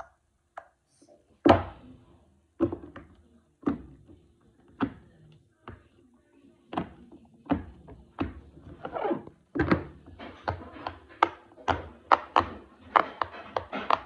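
Large silicone pop-it fidget toy being popped bubble by bubble, each press a short, dull pop. The pops come about once a second at first and speed up to two or three a second in the second half.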